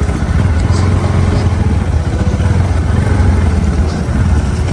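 Motorcycle engine running steadily during a ride, a loud low hum that holds through the whole stretch.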